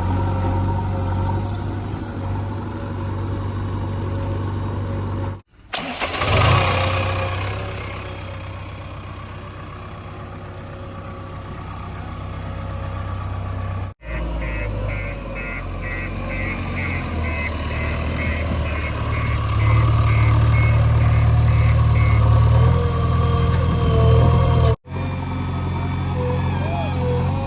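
Backhoe loader's diesel engine running under load, a steady low drone that grows louder and heavier for a few seconds near the end. A loud rush of noise comes just after six seconds in. The sound breaks off abruptly three times.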